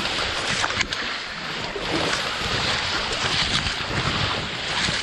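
Dense streamside grass and brush rustling and crackling steadily as it is pushed aside on foot, with a few sharper snaps.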